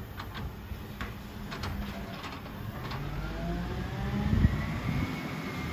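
Volvo Superior Pak side-loading garbage truck working a bin: the engine runs under a series of knocks from the lifting arm and bin, then revs up with a rising whine as the hydraulics work, and a heavy thump comes about four and a half seconds in.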